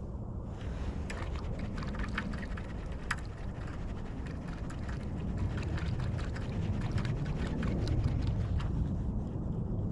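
Steady low rumble of wind and creek water, with a run of small irregular clicks and crunches over most of it.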